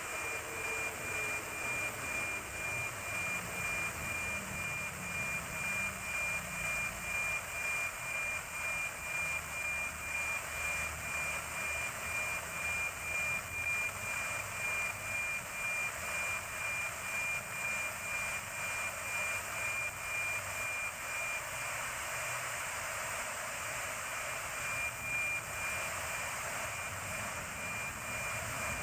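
NOAA 19 weather satellite's APT image signal, FM-demodulated by an RTL-SDR receiver: a steady 2400 Hz tone with a regular tick-tock about twice a second, one for each image line, under static hiss.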